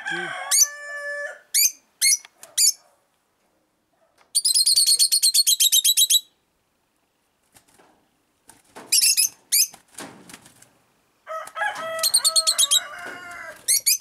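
A rooster crows twice, briefly just after the start and again for about two seconds near the end. Between the crows, caged lovebirds give runs of rapid, shrill chirps.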